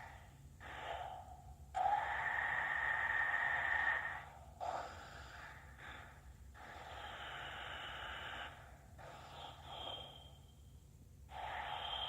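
LG V20 smartphone's speaker putting out a harsh hissing noise in uneven stretches of one to two seconds with short gaps, and a thin steady whine in places. It is a fault that comes on whenever the phone receives a call.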